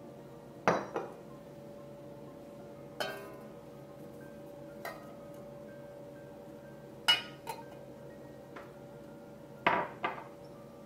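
A glass measuring cup and a stainless steel saucepan clinking and knocking as liquid is poured into the pan. There are about nine short, sharp clinks in all, several of them in close pairs, and the loudest come about a second in, at about seven seconds and near the end.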